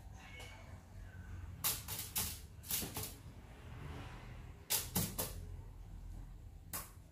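Aluminium foil lining a baking tray crinkling in short sharp rustles, about eight in all, as chopped salsa is scattered onto it and handled. A faint steady low hum underneath.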